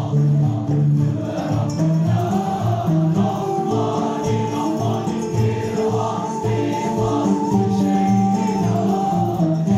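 Male choir singing Turkish music in unison with a traditional ensemble of ney, kanun, oud and percussion, over a steady beat.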